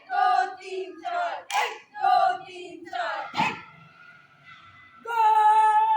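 Drill commands shouted at NCC cadet drill: short, high-pitched shouted words with sharp pitch swoops, then one long held call about five seconds in.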